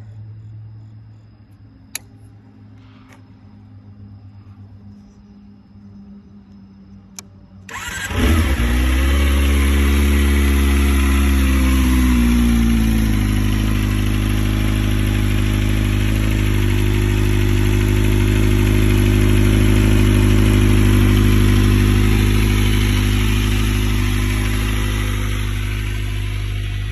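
Kawasaki Ninja ZX-25R's 250 cc inline-four starting through a Yoshimura R-77 full exhaust about eight seconds in, after two short clicks. It runs at a raised idle that drops and settles over the next few seconds, then idles steadily.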